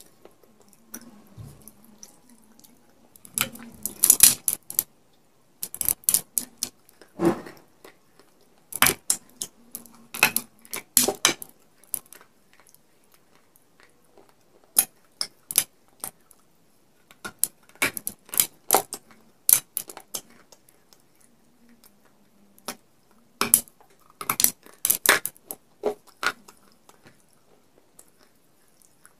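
Crisp cracks and crunches in short clusters as a person bites into and chews a piece of baked clay pot coated with white chalk paste and clay-pot crumbs.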